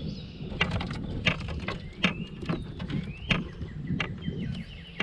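A series of irregular sharp clicks and knocks, about one or two a second, with birds chirping behind them.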